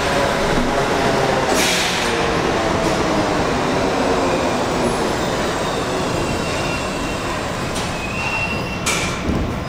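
R68 subway train pulling into an underground station and slowing to a stop, its running noise at first carrying a steady whine. Short hisses come about a second and a half in and again near the end.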